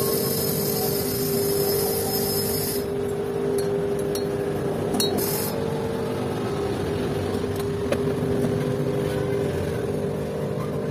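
Steady mechanical hum of a running machine, with a high hiss that stops about three seconds in and a few light clicks.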